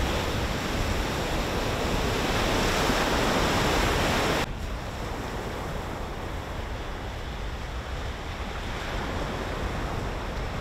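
Ocean surf breaking and washing up the beach, with wind buffeting the microphone. A swell of louder wave noise builds over the first four seconds, then the sound drops abruptly to a softer, steady wash of surf.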